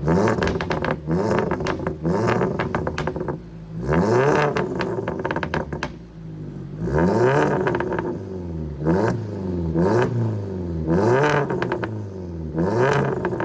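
Seat Leon Cupra R's turbocharged four-cylinder engine revved in short blips, about eight in all, each rising and falling back. Crackles and pops come from the exhaust as the revs drop, thickest after the first few blips.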